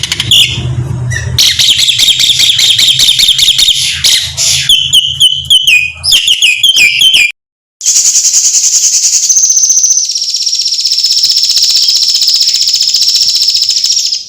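Asian pied starling singing loud, varied whistles and chattering phrases. After a short break about seven seconds in, a steady, rapid, high-pitched trill runs on.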